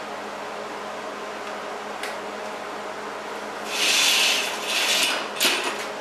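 Steady machine hum with a single sharp click about two seconds in. Near the end come about two seconds of loud, rough hissing and scraping in two or three pulses.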